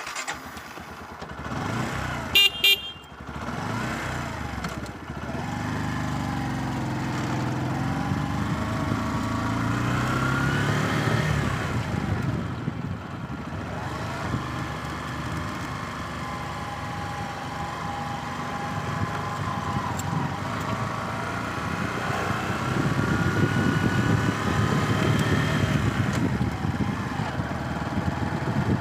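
A motor vehicle engine running on the move, its pitch rising and falling as it revs, with a short horn toot about two seconds in.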